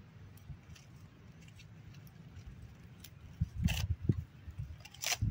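Dry leaf litter crackling and rustling as a young macaque forages and scrambles over it, with two louder crunches about three and a half and five seconds in, over a low steady rumble.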